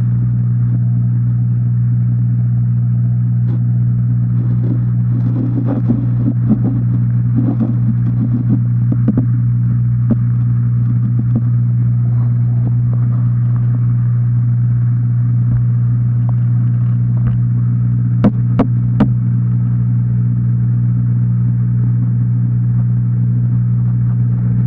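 Steady low hum of an aquarium pump, picked up through the water and tank. A few light knocks come over it, and two sharp clicks about three-quarters of the way through.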